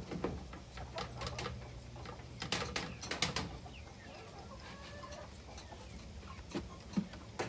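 Chickens clucking, with scattered clicks and knocks, most of them in the first half.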